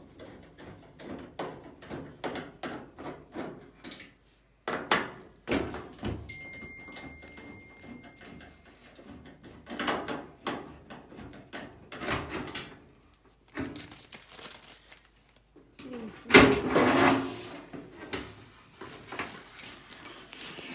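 Hand work on a washing machine's metal and plastic panels as it is taken apart with a nut driver. A quick run of clicks comes first, then scattered knocks, scrapes and clunks, and the loudest clatter comes about sixteen seconds in. A brief thin squeak-like tone sounds about six seconds in.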